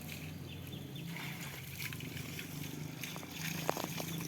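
Steady low hum of an engine running during concrete casting, with wet concrete sloshing and splashing and a couple of sharp clinks near the end.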